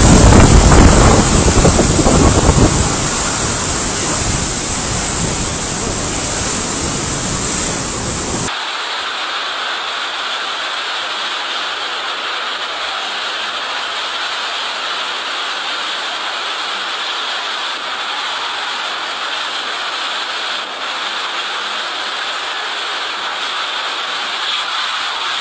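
Typhoon-force wind gusting and buffeting the microphone with a heavy low rumble, loudest in the first few seconds. About eight seconds in it gives way to a steady hiss of driving rain and wind.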